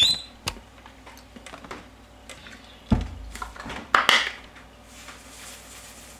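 Kitchen handling sounds from a salt container: a heavy knock about three seconds in, then a short scraping rustle about a second later, followed by a faint hiss as salt is shaken over a bowl of boiled dumplings.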